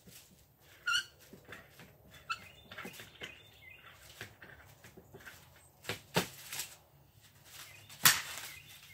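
Scattered knocks and clicks as heated PVC pipe and tools are handled on a wooden jig, the sharpest knock about eight seconds in. Small birds chirp a few times in the background.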